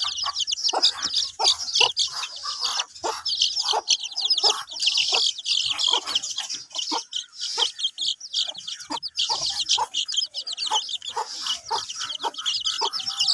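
A flock of young chicks peeping continuously, a dense chorus of short high chirps, with short lower clucks mixed in throughout.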